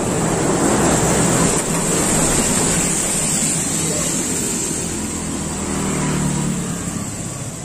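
Steady rushing wind and road noise while riding along a street, with a vehicle's low engine hum swelling around five to seven seconds in.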